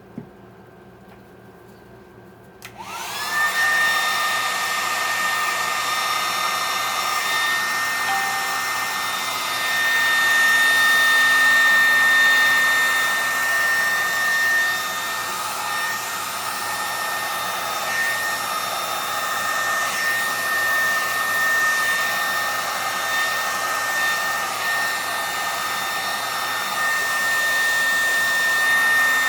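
Hair dryer switched on about three seconds in, spinning up with a short rising whine and then running steadily: a high whine over a rush of blown air.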